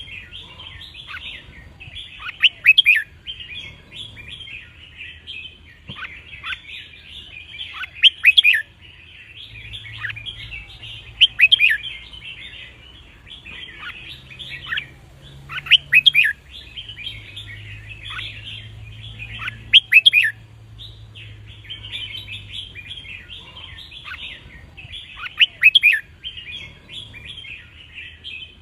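Red-whiskered bulbuls singing: a steady background of chattering, broken by a loud, sharp song phrase every three to five seconds.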